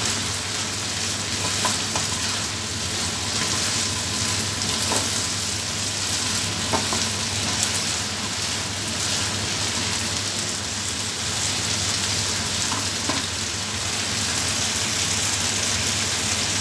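Chicken and green beans sizzling in a frying pan, a steady hiss, with a few short taps and scrapes of a spatula against the pan as the food is stirred.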